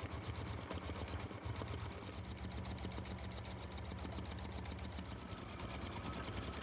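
Brother Innov-is XV8550D embroidery machine stitching out a design: a fast, even run of needle strokes over a low hum.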